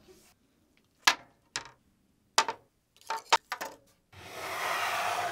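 A series of sharp knocks and clinks of hard objects on a hard workbench surface, some in quick succession, followed near the end by a steady hiss lasting about a second and a half.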